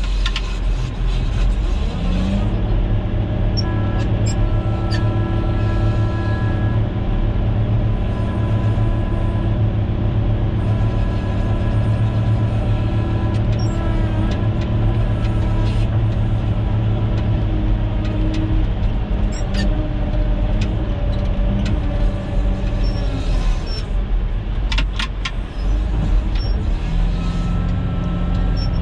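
Caterpillar motor grader's diesel engine running steadily under load, heard from inside the cab. Its pitch rises about two seconds in and dips briefly around halfway, with a few sharp clicks near the end.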